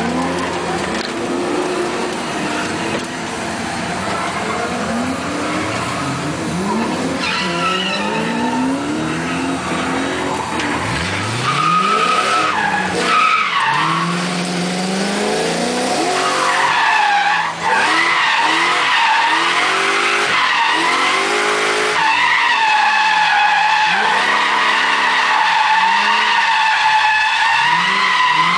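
BMW M5 drifting, heard from inside the cabin: the engine revs rise and fall again and again as the rear tyres squeal. The squeal grows louder and steadier over the second half.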